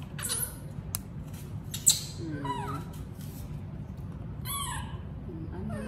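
Baby monkeys giving a few short, high squealing calls that slide down in pitch, one about two seconds in and another about four and a half seconds in. A sharp click just before the first call is the loudest sound.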